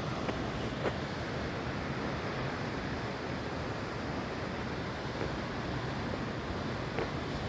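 Waterfall heard from close by: a steady, dense rush of falling water.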